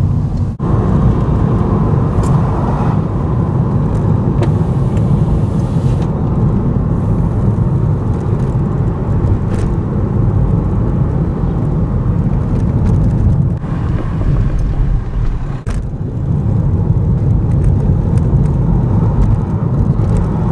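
A car driving along a road, heard from inside the cabin: a steady low rumble of engine and tyres, briefly dipping twice.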